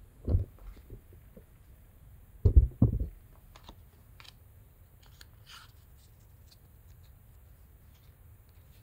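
Objects being handled and set down on a tabletop: a dull thump, then two or three louder knocks close together a few seconds in, followed by light clicks and a brief rustle.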